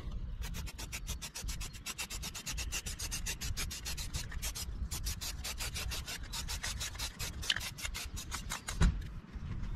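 Aerosol can of Rust-Oleum filler primer spraying, a rapid rasping sputter of pulses with a short break about halfway through and again near the end.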